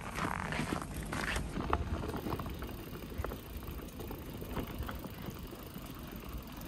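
Footsteps crunching on snow-covered paving for about the first second and a half. Then, after a cut, a steady low rumble of bicycle tyres rolling on a gravel road, with scattered small ticks of gravel.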